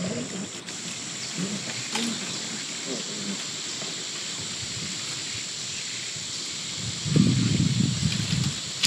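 Steady high-pitched drone of insects, with soft rustling and crunching as a Sri Lankan elephant strips and chews thorny shrub branches. A louder, low rustling stretch comes near the end.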